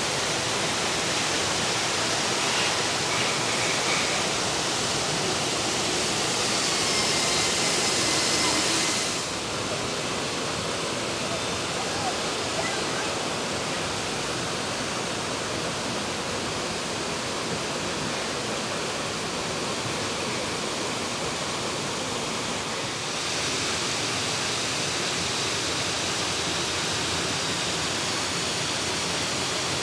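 Steady rush of falling water. The hiss dulls about nine seconds in and turns brighter again about two-thirds of the way through.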